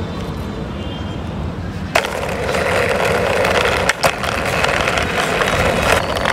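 Plastic toy car wheels rolling and grinding along a rough concrete wall top under a pushing hand, starting with a click about two seconds in and running as a steady rough rumble, with a short knock near the middle.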